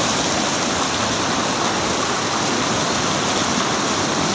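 Water pouring over a low weir and rushing through a shallow channel: a steady, loud rush of water.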